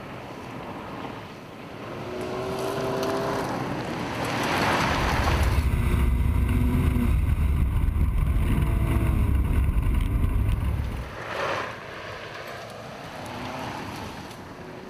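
Ford Fiesta R2 rally car engine revving up and down on a gravel course. For several seconds in the middle it is swamped by a loud low rumble of wind buffeting a car-mounted microphone.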